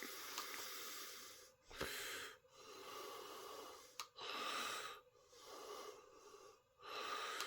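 A person breathing in and out close to the microphone, a soft hiss with each breath, about six breaths in all. Two faint clicks fall between them.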